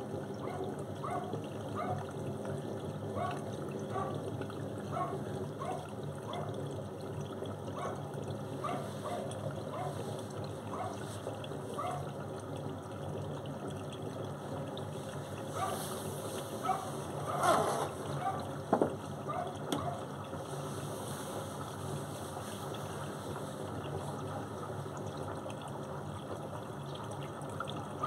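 Beko front-loading washing machine tumbling wet laundry: water sloshing in the turning drum with a soft rhythmic swish a little faster than once a second over a steady motor hum. A louder slosh and a sharp click come about two-thirds of the way through.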